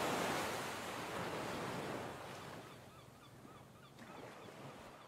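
Ocean surf washing onto a beach, fading steadily away. A run of faint short calls repeats in the second half.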